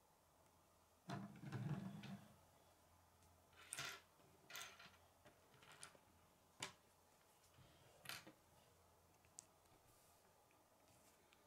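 K'nex plastic pieces being handled on a wooden table, against near silence. A soft rustle with a low thump comes about a second in, followed by scattered light plastic clicks and taps.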